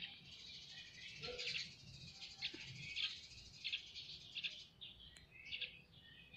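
Small birds chirping faintly, a string of short high chirps coming every half-second to a second.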